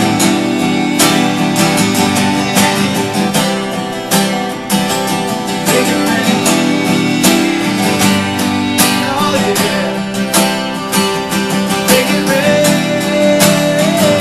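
Acoustic guitars strumming a country song in a steady rhythm, with a held melody note near the end.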